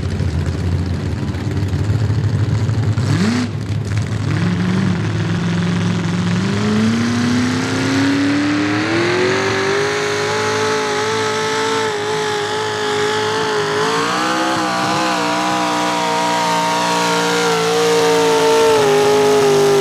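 Small-block V8 of a modified pulling tractor at full throttle hauling the sled: a quick blip about three seconds in, then the revs climb steadily for several seconds and hold high, with small wavers, for the rest of the pull.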